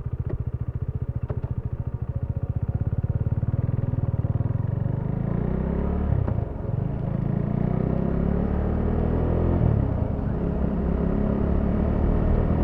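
Motorcycle engine running with an even low pulsing, then pulling away and accelerating with rising pitch, with a short drop about six seconds in at a gear change.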